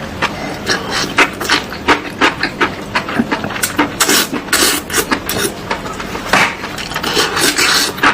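Close-miked eating of spicy enoki mushrooms: a quick, irregular run of short, sharp mouth clicks and smacks, with a few longer slurps.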